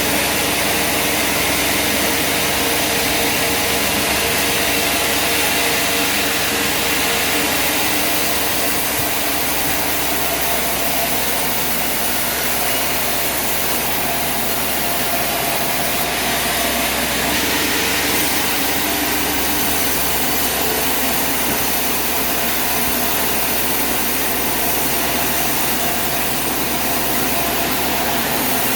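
A heavy engine running steadily.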